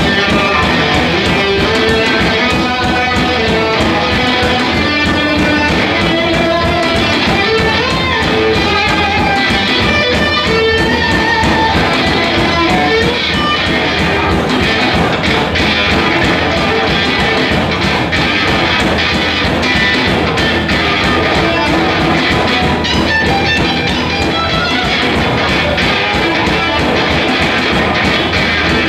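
Live rock band playing loudly through an instrumental passage, electric guitar to the fore with changing note lines over drums and bass.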